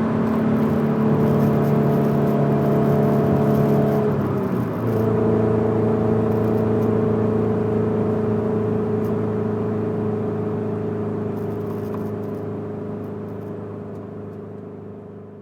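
Scion FR-S's 2.0-litre flat-four boxer engine, fitted with unequal-length headers and an aftermarket exhaust, running at a steady engine speed with a droning rumble. About four and a half seconds in the sound dips briefly and comes back at a lower pitch. It then holds steady while fading away gradually.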